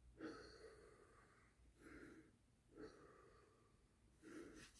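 Near silence: room tone with a few faint, soft breathy sounds.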